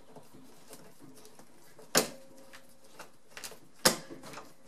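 Two sharp metallic clicks about two seconds apart, the first with a short ring, and fainter ticks between them: a screw being set and driven through a dishwasher's metal mounting bracket into hard oak.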